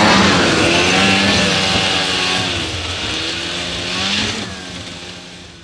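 A chorus of dogs howling together, many overlapping wavering tones held at once, fading out near the end.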